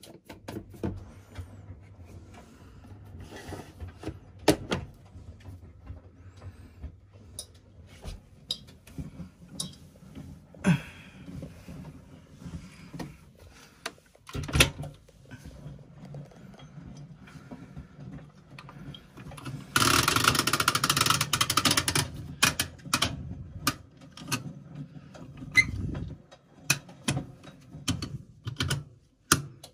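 Washing machine running a wash cycle: a steady low motor hum with scattered clicks and knocks from the turning drum, and a loud rushing noise for about two seconds about two-thirds of the way through.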